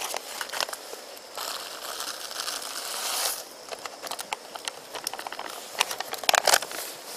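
Foil-lined Mountain House freeze-dried meal pouch crinkling and crackling as it is handled and its dry contents are tipped into a pot, with a longer rustling stretch between about one and a half and three seconds in.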